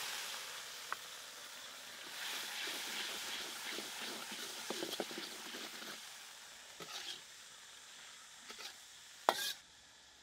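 Liquid poured into hot oil and chopped aromatics in a steel wok, hissing and sizzling loudly with steam, then dying down as a metal ladle stirs and scrapes the pan. A few ladle knocks on the wok follow, the loudest a ringing clang near the end.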